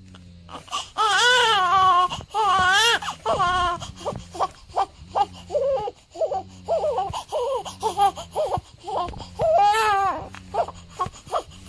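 Newborn baby crying: long wavering cries in the first few seconds and again near the end, with a run of short, quick cries in between.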